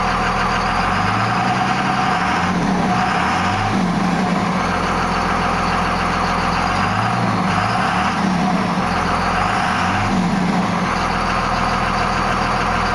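1998 Dodge Ram 2500's 5.9-litre Cummins inline-six turbo diesel, running and revved up and back down in about six short blips.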